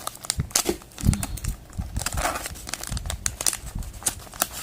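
Packaging of a COVID-19 antigen test kit being opened by hand: crinkling and crackling with many sharp clicks, and a louder knock about a second in.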